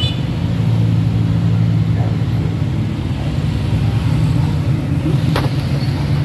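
An engine idling steadily with a low, even hum, and one sharp click about five and a half seconds in.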